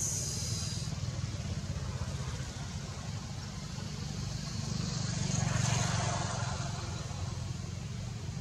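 Steady low rumble of motor traffic, with a motor vehicle passing that grows louder and fades again a little past the middle.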